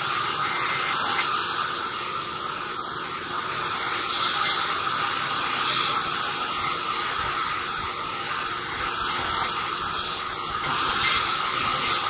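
Sawmill band saw running steadily, its blade ripping lengthwise through a thin plank of light wood; a continuous, even hiss-like machine noise without breaks.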